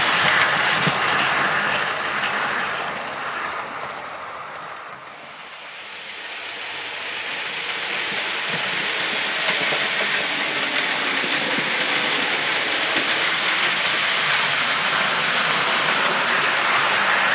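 Hornby 00 gauge LNER Class P2 model locomotive and four coaches running along the track. The sound fades down over the first five seconds, then builds up again and holds steady as the train comes past.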